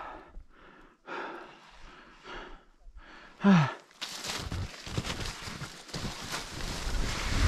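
A skier breathing hard, with panting gasps and a short falling groan about three and a half seconds in, out of breath after a couple of turns. From about four seconds on, a rough rushing noise takes over and grows louder.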